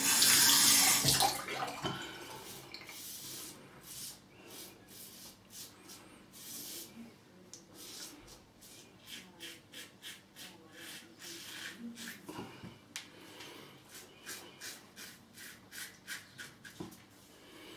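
Rex Supply Co. Ambassador double-edge safety razor with a Gillette Red blade scraping through lathered stubble in a run of short strokes, two or three a second. It opens with a second or two of running water as the razor is rinsed.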